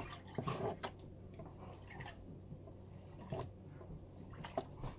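Faint water sloshing and dripping as a green plastic gold pan is dipped and tilted in a tub of water, washing paydirt down to the concentrates, with a few soft splashes.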